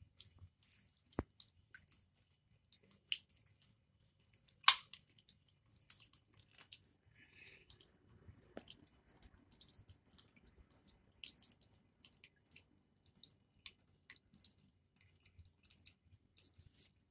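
Water dripping in small, irregular drops, with one sharper, louder click about four and a half seconds in.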